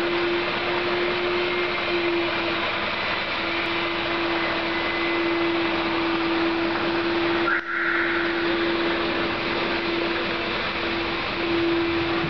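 Car engine running with a steady whine through its noise, and a brief higher squeal about seven and a half seconds in: the alternator belt slipping, the cause given for the strange engine noise.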